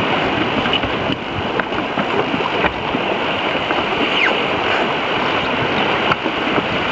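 Steady rush of wind on the microphone and water along the hull of a Mount Gay 30 racing sailboat under way in choppy water, with a few short clicks and knocks scattered through it.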